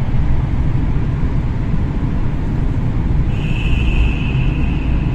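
Steady low rumble of tyre and engine noise inside the cabin of a Tata Tiago hatchback driving through a road tunnel. A steady high tone joins about three seconds in and lasts about two seconds.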